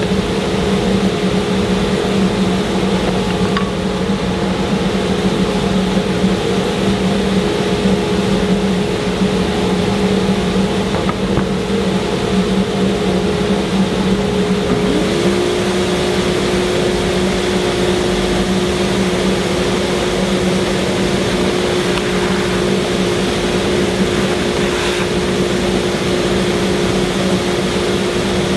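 Steady hum of a running shop-machine motor. About halfway through, a second tone rises briefly and then holds steady alongside it.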